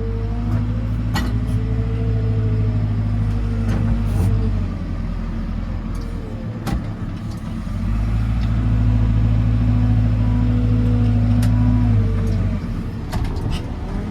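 JCB 4CX backhoe loader's diesel engine running under load while the front 4-in-1 bucket pushes stone, with a hydraulic whine rising and falling as the loader arms are worked. The engine labours harder for the first few seconds and again from about eight to twelve seconds in, easing in between, with a few sharp clicks.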